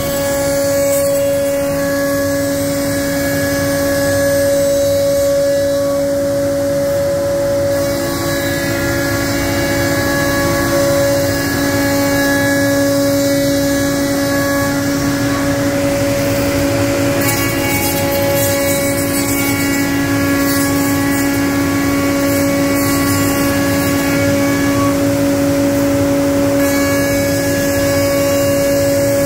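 StyleCNC STM1325C CNC router spindle running with a steady whine over a rushing noise, machining wooden tenon rails. The upper hiss shifts in texture about 8 and 17 seconds in.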